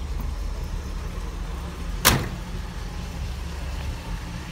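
1968 Ford Mustang GT500KR's 428 Cobra Jet V8 idling with a steady low rumble. A car door shuts once, loudly, about two seconds in.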